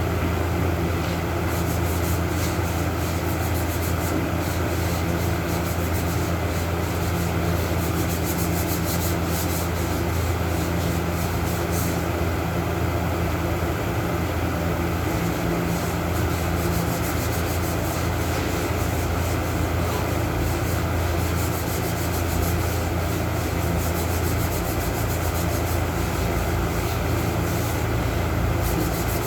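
Continuous sanding: abrasive rubbing against a surface, with a constant steady hum underneath.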